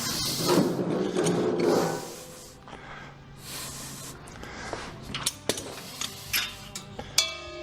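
Steel three-point hitch arms and pins being handled and fitted: rubbing and scraping for the first couple of seconds, then a few sharp metal clicks and a ringing metal clank near the end.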